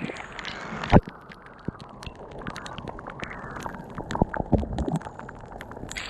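Rainwater splashing and dripping: many quick drop hits over a steady wash of falling water, with one louder splash about a second in.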